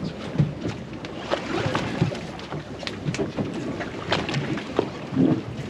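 Wind buffeting the microphone aboard a boat at sea, with scattered knocks and clicks of handling on deck.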